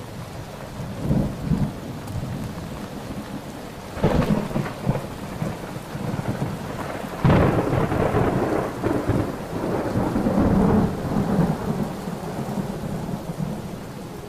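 Steady rain with thunder. Claps come about a second in, again about four seconds in, and loudest about halfway, that one rumbling on for several seconds.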